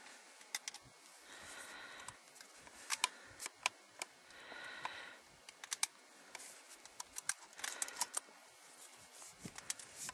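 Shotgun shells being pushed one at a time into the tube magazine of a Stevens 320 pump-action shotgun: a run of sharp metallic clicks at irregular spacing.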